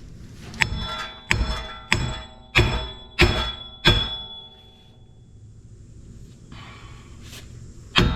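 Hammer blows on steel on a car's front wheel hub assembly: six sharp, ringing strikes about two-thirds of a second apart, then a pause and one more strike near the end, knocking out parts that are meant to pop free.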